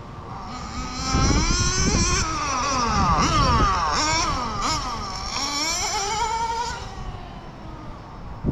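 Kyosho FW06 nitro RC car's .12 engine revving up and down as it drives, its high pitch rising and falling over and over. It is loudest from about a second in until near the end, where it fades back.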